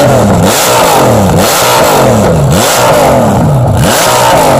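Custom 2003 Honda Valkyrie's flat-six engine, breathing through a Delkevic header and exhaust, revved repeatedly with the throttle blipped about once a second, its pitch climbing and falling with each blip.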